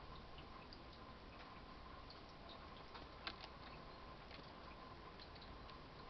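Near silence: faint outdoor background with scattered faint ticks, one slightly louder click about three seconds in, and a faint steady whine.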